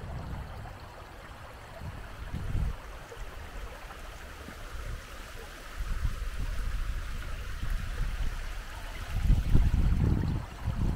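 Water running down a stepped stone channel and small cascade, a steady trickling splash, with bursts of low rumble on the microphone, heaviest in the second half.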